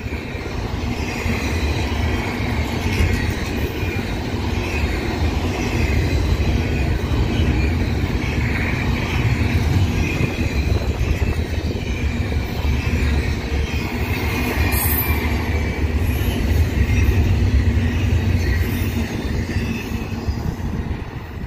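Double-stack intermodal freight train rolling past: a steady heavy rumble of steel wheels on rail and rattling well cars, with a high wavering wheel squeal over it. It eases off slightly near the end.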